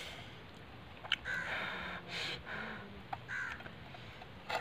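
Crows cawing repeatedly, several harsh calls of under half a second each. Two light clicks come about a second in and near the end, as a wooden stick knocks against a steel tumbler.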